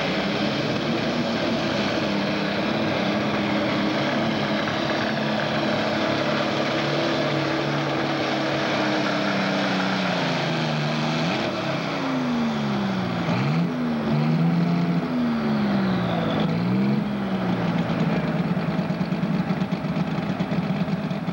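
Super stock pulling tractor's turbocharged diesel engine running flat out under load as it drags the sled. Around the middle the engine speed drops and swings up and down several times, then it settles to a steady note near the end.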